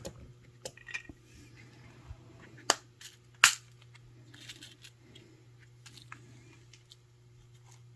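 Small clear plastic jump-ring container being handled, giving two sharp clicks a little under a second apart and a few faint taps, over a steady low hum.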